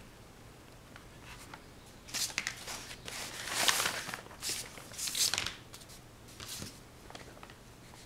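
Rustling and scraping handling noises: a run of short noisy bursts through the middle, the loudest about three and a half seconds in, with a few fainter ones near the end.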